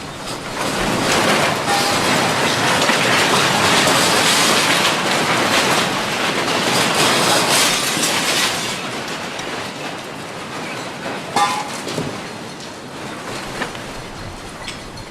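Loud rattling and rumbling of earthquake shaking. It swells about a second in, holds for several seconds, then eases off, with a few sharp clacks near the end.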